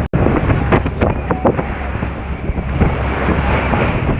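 Wind buffeting the microphone over the wash of sea waves, a steady rumbling noise, with a few sharp knocks about a second in.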